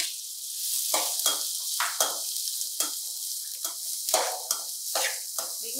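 Chopped onions sizzling in hot oil in a metal kadai, just added to be sautéed soft, while a perforated metal spatula scrapes and stirs them in strokes about twice a second.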